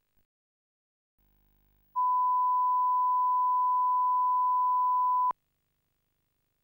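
A steady one-kilohertz line-up tone, the reference tone that goes with colour bars, sounding for about three seconds and cutting off suddenly with a click. A very faint low hum comes before it.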